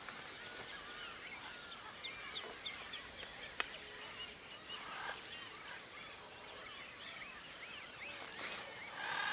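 Many small birds chirping and twittering together, with a faint steady high whine underneath. A single sharp click sounds about three and a half seconds in, and short louder rasping bursts come about five seconds in and near the end.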